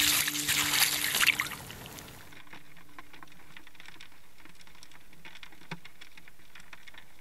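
Water pouring and trickling off a strainer basket of freshly boiled crayfish, loud for the first second and a half while a music chord fades out. After about two seconds it gives way to a quieter, steady muffled underwater wash with faint scattered clicks.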